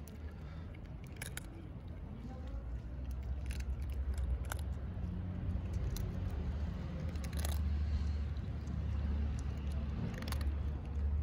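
Cats crunching dry kibble: a scattering of short, sharp crunches over a low steady rumble.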